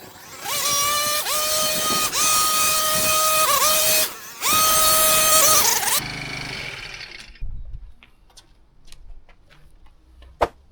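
Pressure washer spraying in about four bursts over the first six seconds: a loud hiss with a steady whistling tone that glides up at each start, broken by short gaps as the trigger is released. It then dies away, and a few light clicks and knocks follow.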